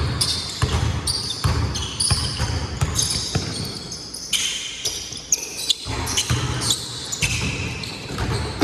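Basketball being dribbled, with repeated thuds on the court floor, and sneakers squeaking sharply over and over as players cut and stop, echoing in a large hall.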